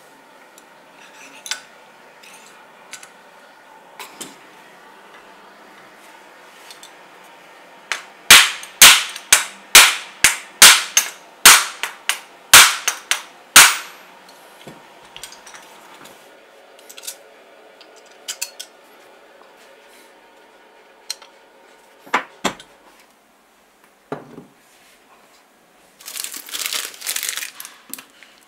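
A run of about a dozen sharp knocks, roughly two a second, as a hammer drives metal rods set in a wooden block to knock the field coil out of the drill's aluminium motor housing. A few single knocks follow, and near the end there is a short scratchy scrubbing.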